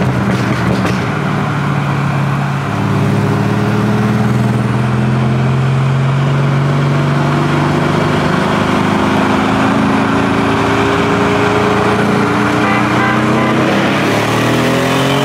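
Tuned Mercedes CLS 550's twin-turbo V8, fitted with downpipes, running hard as heard from inside the cabin, over road and wind noise. The engine note dips briefly a couple of seconds in, then climbs slowly and steadily, and near the end its pitch sweeps up sharply as the car accelerates hard.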